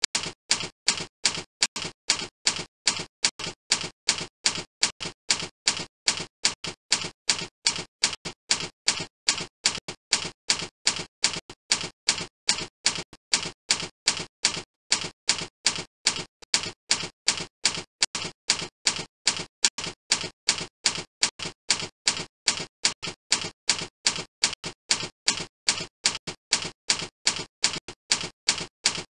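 Typewriter-style clicking sound effect accompanying text being typed onto the screen: steady sharp clicks, about three a second, alternating louder and softer.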